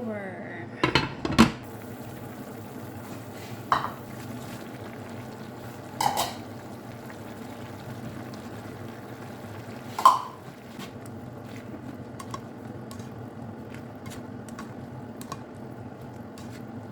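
Metal cookware clanking while noodles are cooked in a pan: two loud clanks about a second in, then single clanks at intervals, over a steady background noise.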